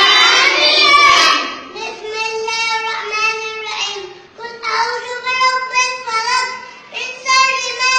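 A young boy chanting Quranic recitation aloud while leading prayer, in a high voice with long held, wavering notes. It is loudest and harshest in the first second or so.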